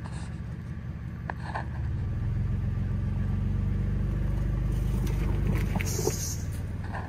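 Third-generation Toyota 4Runner's engine running steadily as the truck crawls slowly up a rutted trail. It gets louder about two seconds in under more throttle and eases off near the end.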